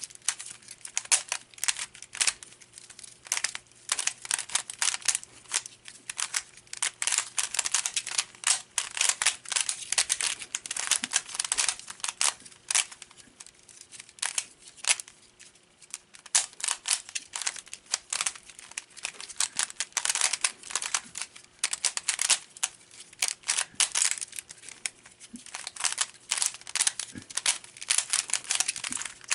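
A stickerless concave 3x3 plastic puzzle cube with a Guhong-style mechanism being turned fast in a speed solve: rapid, irregular plastic clicking and clacking as the layers turn, in quick bursts with short pauses between them.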